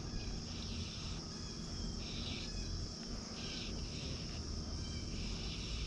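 Insect chorus of crickets: a steady high-pitched chirring, with a louder rasping insect call repeating about every second and a half, over a faint low rumble.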